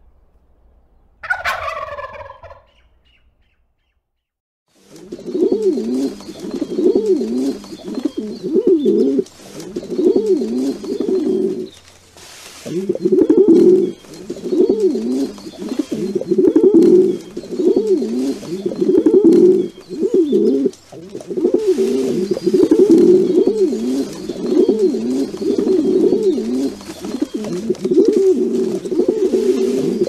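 A turkey gives one short, falling call about a second in. After a brief pause, a flock of domestic pigeons coos continuously in overlapping phrases, with a couple of short breaks.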